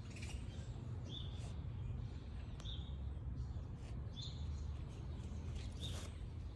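A bird chirping, one short high chirp about every second and a half, four times, over a steady low rumble.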